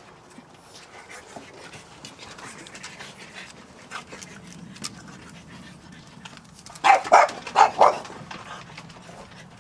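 French Bulldog puppy panting close by, with a quick run of about four loud breaths near the end. Faint light ticks and scuffs sound between them.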